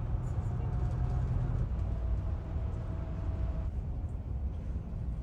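Bus engine and road noise heard from inside the cabin: a steady low rumble with a faint whine over it. The higher road noise drops away about three and a half seconds in.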